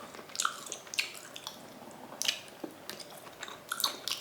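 Wet chewing and lip-smacking of someone eating raw meat: irregular soft clicks and squelches, several a second.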